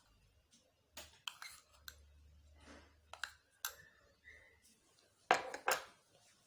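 Light clicks and clinks of glassware and kitchen utensils being handled, with a short ring about four seconds in and a louder cluster of knocks near the end.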